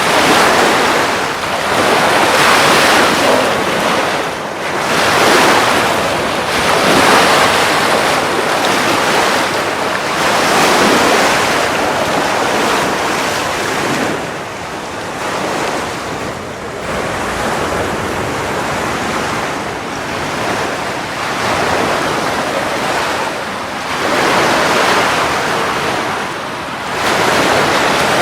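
Atlantic surf washing onto the beach, swelling and ebbing every few seconds, with wind buffeting the microphone.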